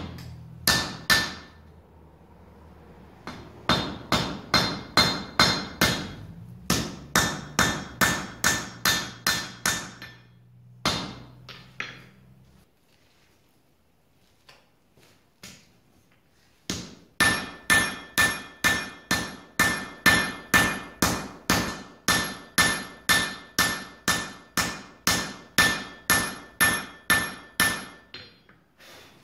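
Blacksmith's hand hammer striking hot iron on an anvil in steady blows, about two a second, with the anvil ringing on each blow. The hammering breaks off for a few seconds about midway, then resumes in a long even run.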